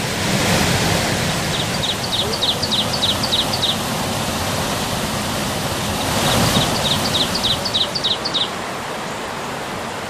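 Steady rush of water over the rocks of a shallow jungle river. Twice, a small animal calls in a run of about eight short high notes, roughly three a second.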